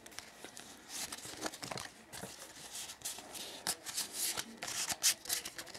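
Pokémon booster pack foil wrapper being worked open by hand and the cards handled: soft, irregular crinkling and small clicks, busier about four to five seconds in.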